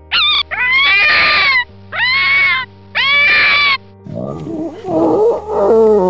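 Fox calling three times, high-pitched cries of about a second each. About four seconds in, a boar's lower, drawn-out calls take over. A steady background music bed runs under both.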